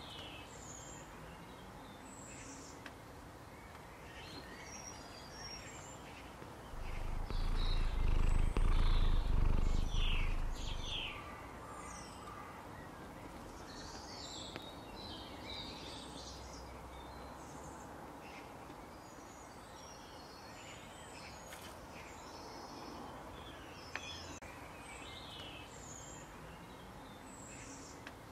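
Small birds chirping off and on in the background, with a low rumble about seven seconds in that lasts some four seconds and is the loudest sound.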